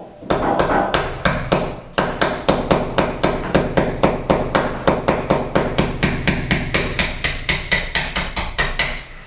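Ball peen hammer tapping a chisel in quick, even light blows, about four a second, with a slight metallic ring, chipping out old mortar from around a glass block.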